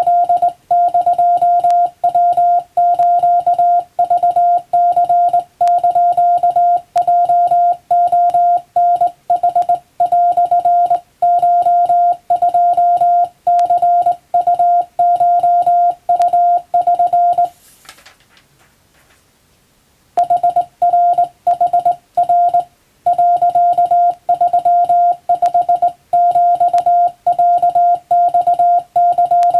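Hand-keyed Japanese (wabun) Morse code: a single steady-pitched beep switched on and off in short and long elements. About two-thirds of the way through the keying stops for about two seconds, with a brief faint rustle at the start of the gap.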